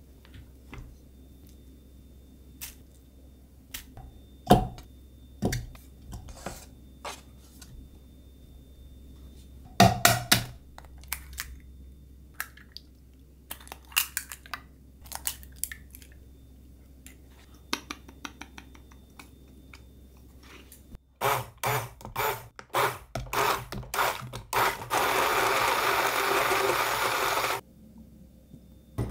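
Kitchen handling knocks and clinks, two of them sharp and loud, then a small electric blender pulsed several times and run steadily for about two and a half seconds, puréeing steamed kabocha squash with eggs, before cutting off.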